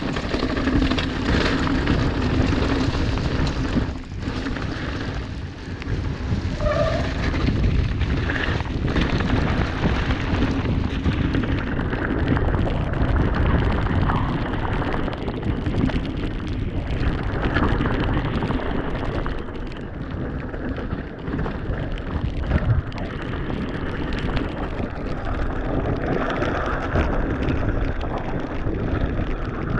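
Ride noise from an Orbea Rallon mountain bike descending a wet trail: wind buffeting the GoPro's microphone, tyres rolling over wet ground and the bike rattling, with occasional knocks over bumps.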